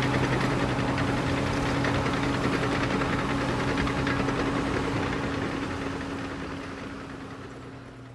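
Bulldozer diesel engine running at a steady speed with a knocking, rumbling note. It fades out over the last few seconds.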